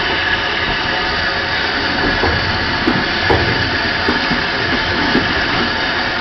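LBSC A1X Terrier 0-6-0 tank engine No. 672 Fenchurch working at low speed: a steady hiss of steam, with a few soft low thumps at uneven spacing.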